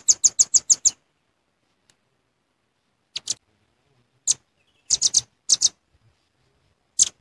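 Velvet-fronted nuthatch giving sharp, high chip calls: a fast run of about eight chips a second that stops about a second in, then scattered single and paired chips.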